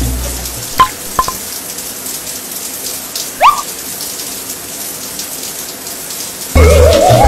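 Showers running in a tiled shower room, a steady hiss of water, with a few clicks about a second in and a short rising squeak about halfway. Music with a rising slide comes in loudly near the end.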